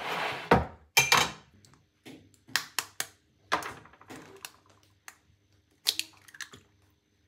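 A dish slid across a countertop, then a series of sharp taps as an egg is knocked against the rim of a clear plastic mixing bowl, and the shell cracked apart by hand near the end.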